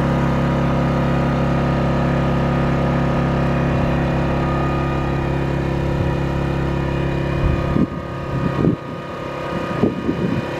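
Pulsar 2300 (G2319N) inverter generator running steadily with no load and eco mode off, so the engine holds a high speed. About eight seconds in it becomes quieter, with a few low thumps.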